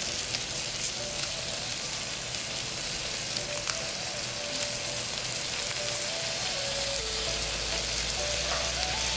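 Red beans, green onion and raw rice frying in oil in a pot, a steady sizzle. Soft background music plays a simple melody over it.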